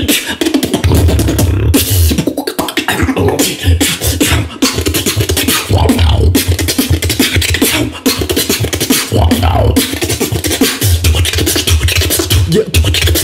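Solo beatboxer performing a fast, dense routine with the mouth alone: rapid clicking snares and hi-hats over repeated stretches of deep sub-bass pulses, with a brief drop-out about eight seconds in.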